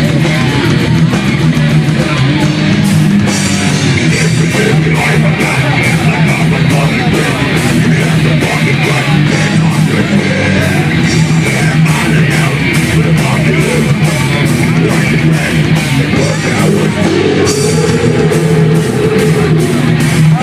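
Punk rock band playing live: loud electric guitar and drum kit, with cymbal hits on a steady beat of about two a second.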